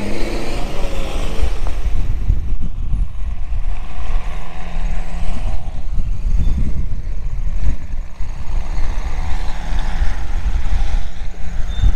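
Toyota Hilux engine running at low revs as the truck crawls over rough off-road ground, with a heavy low rumble.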